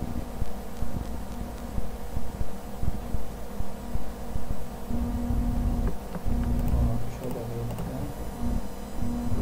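A steady background hum with irregular low rumbling thumps. From about halfway on, a low buzz cuts in and out several times.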